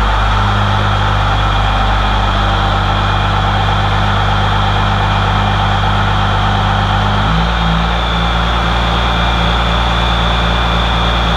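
First-gen Cummins 12-valve turbo diesel running steadily under way, with a steady high turbo whistle over the engine note. The engine note changes about seven seconds in, and the whistle grows stronger soon after.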